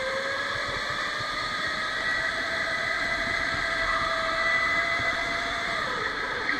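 Electric go-kart's motor whining under acceleration, its pitch rising slowly as the kart gains speed, then dropping suddenly near the end as it slows, over a steady hiss of tyre and air noise.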